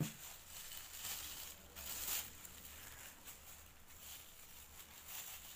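Thin polyethylene carrier bags rustling and crinkling in the hands as strips of them are knotted and pulled together, in short uneven bursts.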